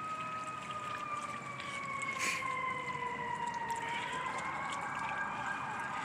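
An emergency-vehicle siren wailing, its pitch sliding slowly down for about four seconds and then rising again near the end.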